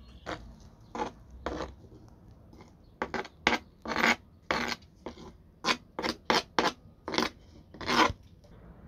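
Knife blade scraping chopped wild garlic across a cutting board into a mortar: about fourteen short rasping scrapes, irregular and coming faster in the second half.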